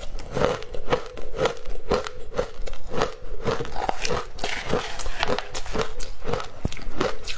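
Close-up crunching and chewing of frozen shaved ice coated in matcha powder, a steady run of crisp crunches about two a second.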